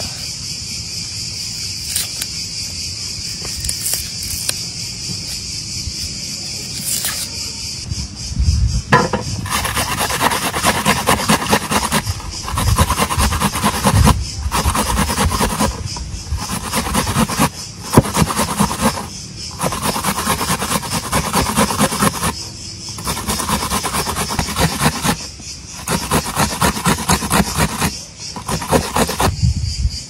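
Onion being grated on a metal box grater: fast rasping strokes in runs of a few seconds with short pauses, starting about a third of the way in. Before that, a steady high insect drone with a few light clicks.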